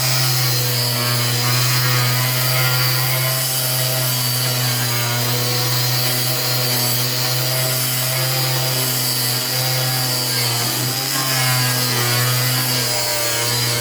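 Makita angle grinder running steadily while sanding old paint off wooden exterior boards, its tone wavering briefly about ten seconds in.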